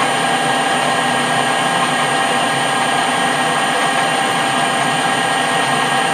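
Metal lathe running steadily, taking a light turning pass of about 15 thou on a bar; an even whine from the machine over the cutting noise.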